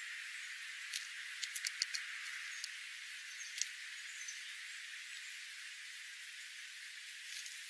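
Small dry clicks and rattles of a scrub-jay hopping and pecking at birdseed on gravel over a steady hiss. A quick run of four or five clicks comes about a second and a half in.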